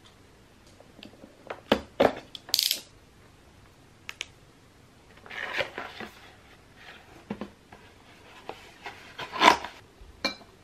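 Gift items being unpacked and set down on a tabletop: a series of knocks and taps, rustling paper packaging in the middle, and a short ringing clink near the end as a small gold rabbit figurine is placed on a ceramic dish.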